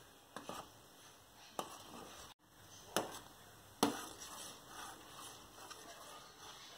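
Metal spoon stirring milk in a steel pot, clinking against the pot in a handful of scattered taps.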